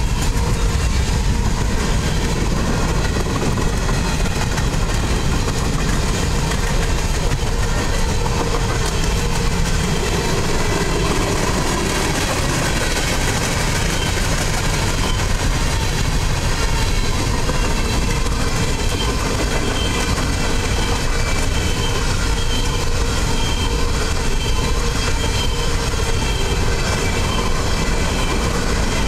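Freight train rolling steadily past at close range: a mid-train diesel locomotive followed by a string of loaded covered hopper cars, the steady rumble of steel wheels on the rails holding at one loud level throughout.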